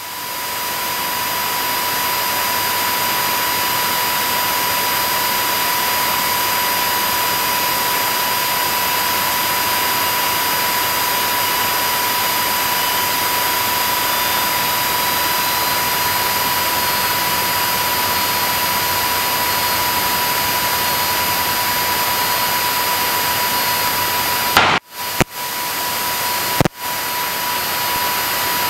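Small single-engine piston airplane's engine and propeller running at full takeoff power during the takeoff roll, heard from inside the cockpit as a loud, steady drone. It fades in over the first second and cuts out briefly a few times near the end.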